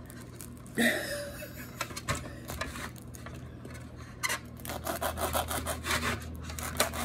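Kitchen knife sawing back and forth through a durian's thick, spiky husk: a run of short rasping scrapes that comes faster and denser in the second half.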